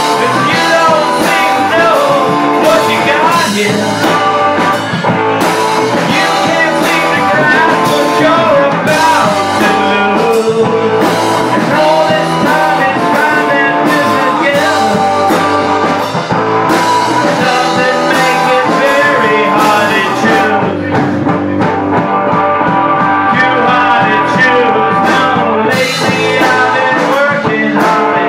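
Live rock band playing: electric guitar, electric bass and drum kit, loud and continuous, with wavering guitar lines over a steady beat.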